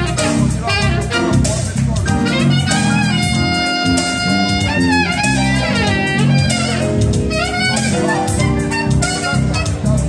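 Live jazz: a saxophone plays the melody, holding one long note a few seconds in, over an electric bass line and keyboard.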